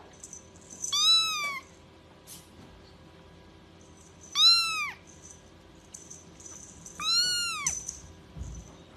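A small kitten meowing three times, a few seconds apart: short, high-pitched mews, each rising and then falling in pitch.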